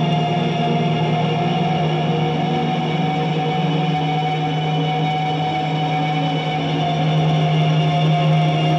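Electric guitar played through effects pedals into a VOX combo amp, making a dense, steady ambient drone of held low and middle tones with no distinct picked attacks.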